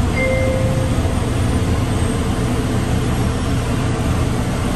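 Steady low hum and rumble of a Bombardier Innovia APM 100 people-mover car standing at a station between runs. A short electronic beep sounds about a quarter second in.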